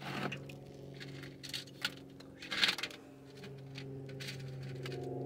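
Small stones of gem ore clicking and rattling on a wire-mesh sifting screen as a hand picks through them, a few scattered clicks with the sharpest about two and a half seconds in, over a steady low hum.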